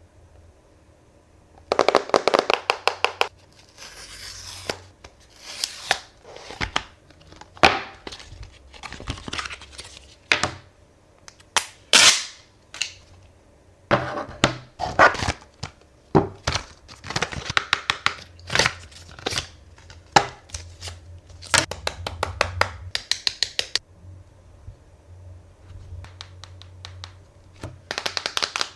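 Smartphone box and packaging being handled and opened: bursts of rapid sharp clicks and tapping with tearing and crinkling of plastic and cardboard.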